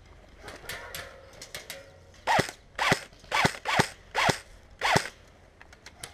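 Airsoft rifle fired in single shots, about six in quick succession. Each shot has a short mechanical whir that falls in pitch.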